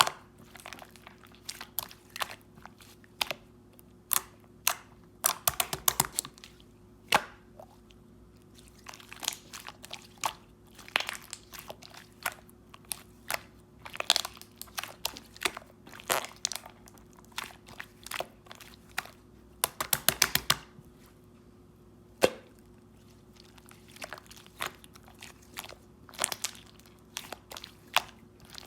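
A small slime being squished and pressed by hand, giving irregular wet clicks and pops. Two denser runs of rapid popping come about five seconds in and again about twenty seconds in.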